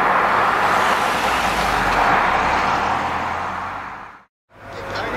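A Fisker Karma driving away with a steady rushing drive sound, which fades out about four seconds in and cuts to brief silence. A different steady noise starts near the end.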